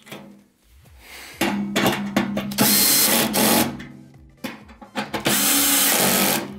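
Cordless drill/driver with a hex nut-driver bit driving the screws that fasten a furnace blower motor's mounting bracket to the blower housing. It runs in short spurts, the two longest about a second each, one near the middle and one about five seconds in.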